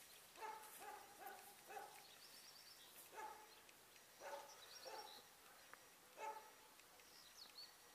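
A dog giving faint, short, high barks and yips, in small clusters about once a second.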